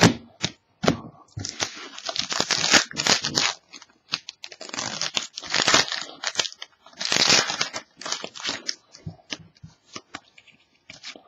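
Foil trading-card pack being torn open and its wrapper crinkled, in several bursts of ripping and rustling, with sharp clicks of cards being handled in between.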